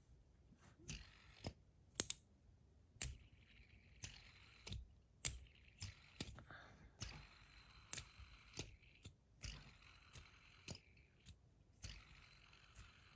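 Metal bar fidget spinners being flicked and caught by hand: a string of sharp metallic clicks, about one a second, over the faint whir of spinning bearings.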